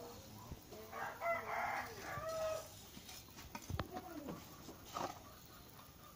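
A rooster crowing: one long call beginning about a second in, followed by a few shorter calls and a single sharp knock.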